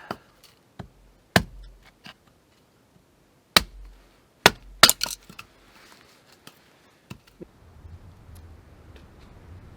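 Axe splitting dry, punky poplar into kindling: sharp chopping strikes, one a little over a second in, another about three and a half seconds in, then a quick run of four or five strikes around four and a half to five seconds in, with a few fainter knocks after.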